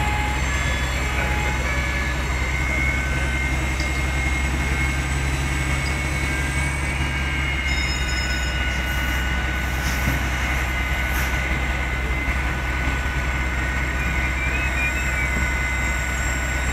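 Fire trucks' diesel engines running steadily at the fire ground: a continuous low mechanical rumble with a steady hum.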